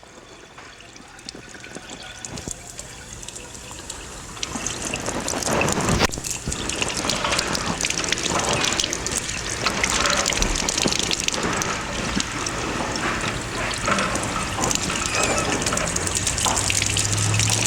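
Water from a fixture turned on upstairs rushing and gurgling through a house's drain line, building up from about four seconds in to a steady flow. The line is flowing freely, with no obstruction.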